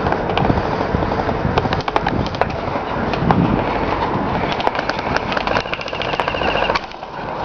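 Airsoft guns firing in quick trains of sharp clicks, two main bursts a couple of seconds apart, over a steady background rumble.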